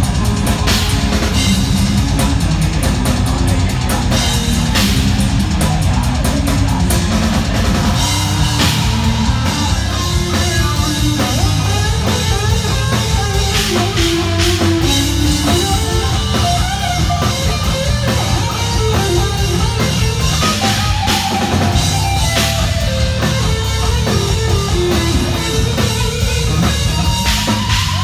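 Blackened death metal band playing live: loud distorted electric guitars over dense drumming with steady bass drum and cymbal wash.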